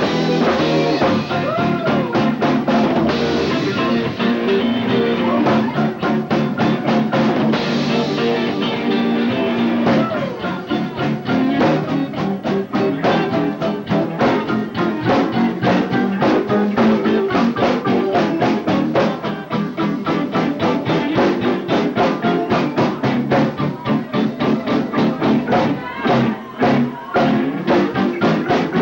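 Live rock band playing: electric guitar over a drum kit keeping a steady beat, in a mini-cassette recording with the top end cut off.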